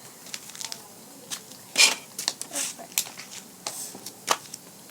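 Small fireworks crackling: irregular sharp pops and snaps, with one louder burst about two seconds in.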